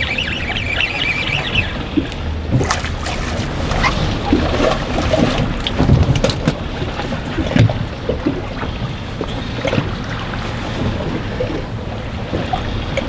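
Strong wind buffeting the microphone on an anchored fishing boat, with a low rumble, water against the hull, and scattered knocks from the boat and gear. There is a brief high squeaking near the start.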